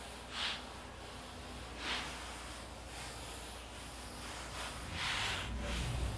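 Aerosol can of shellac sprayed in three hissing bursts, two short ones in the first two seconds and a longer one about five seconds in, putting the sealing coat on an elk antler.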